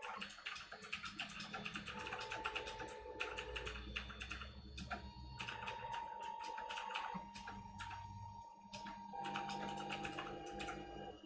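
3D printer's stepper motors running through short, quick moves while printing a small part: fast runs of ticking clicks over a steady whine that shifts pitch from move to move, with a few brief pauses.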